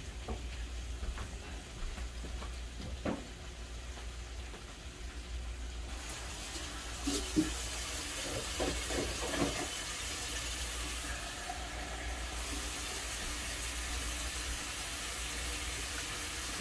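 Kitchen tap running steadily, starting about six seconds in, with a few knocks and clinks of kitchenware soon after it starts.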